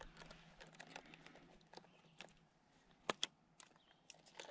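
Faint, scattered small clicks and taps, with two sharper clicks about three seconds in.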